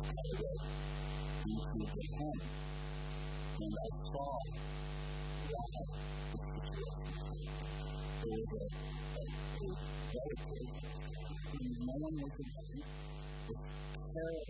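Steady electrical mains hum, with faint pitched sounds coming and going over it every second or so.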